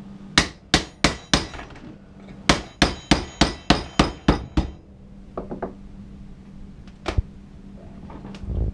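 Pair of pliers used as a hammer, striking a chisel set on the crown of a ewe's skull to crack the bone open: sharp metallic knocks, four in quick succession, then after a short pause a faster run of about nine at some four a second. A few lighter taps and one last sharp blow follow near the end.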